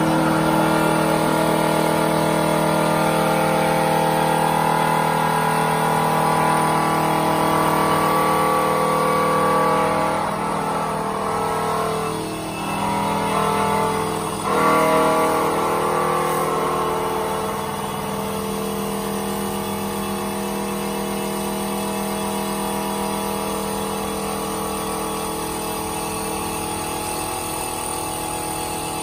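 CNC wood-turning lathe running, its spinning wooden blank being shaved by the fixed cutter: a steady machine whine with several held tones over the rush of cutting. It dips briefly about halfway and runs a little quieter and steadier after that.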